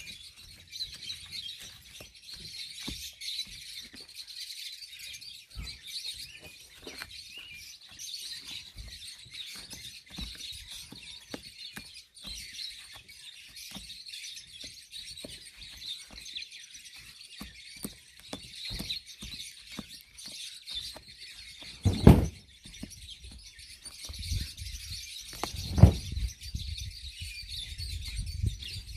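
Small scratching clicks of a hand carving tool scraping rotten dead wood from an elm bonsai's trunk, over steady bird chirping. Two louder knocks come near the end, about four seconds apart.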